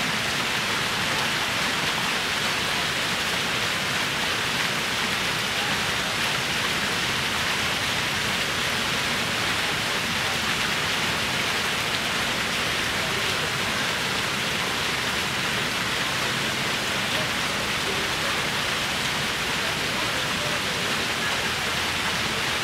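Fountain jets falling and splashing steadily into a pool, an even rush of water.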